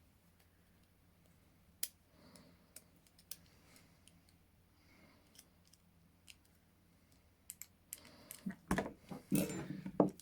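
Small metallic clicks and scrapes of a makeshift pick working in the keyhole of ASP Model 100 handcuffs, the cuff's lock clicking now and then. Near the end the clicks and knocks come faster and louder as the cuffs and tool are handled.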